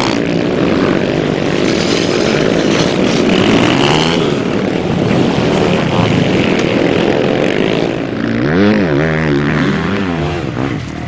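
Dirt bike engines revving, their pitch rising and falling with the throttle; near the end one engine swells up and down in pitch several times.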